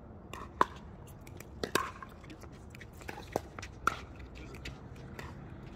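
Pickleball paddles hitting a plastic ball during a rally: a run of sharp hits, about six in the first four seconds, with a quieter one near the end.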